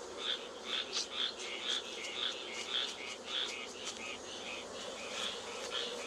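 Honeybees humming around an opened hive, under a high chirp from some calling creature that repeats evenly about twice a second.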